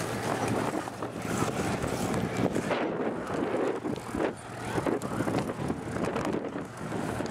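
Wind rushing and buffeting on the microphone while riding a bicycle into a strong headwind, rising and falling unevenly.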